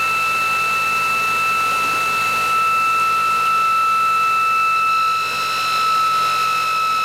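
A ReGenX generator prototype spinning at speed, giving a steady high-pitched whine. About five seconds in, the whine picks up extra higher overtones.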